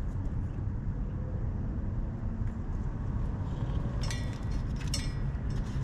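A steady low rumble, with a cluster of small clicks and rattles about four and five seconds in as the hard start kit and its wire terminals are handled and pulled from the air conditioner's electrical compartment.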